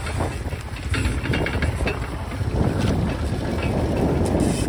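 Engine of a small ridden farm vehicle running steadily as it is driven along.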